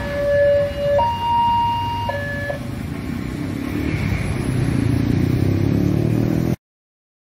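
A horn sounds three held notes over a steady rumble of road traffic engines: a low note for about a second, a higher note for about a second, then the low note again briefly. Near the end the sound cuts off abruptly.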